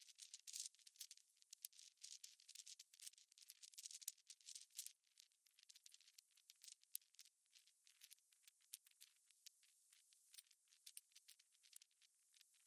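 Faint crackling and scratching of grit and loose volcanic rock under a person settling onto a rocky outcrop. The noise is densest in the first five seconds, then thins to scattered small clicks.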